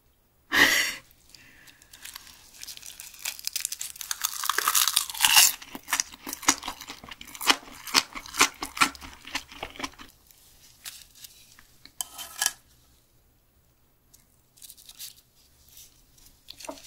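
Close-miked chewing of a bite of raw Spanish mackerel sashimi wrapped in crisp dried seaweed. A sharp crunch comes about half a second in, then several seconds of dense crackly chewing. Shorter, softer crinkles follow near the end as seaweed sheets are handled.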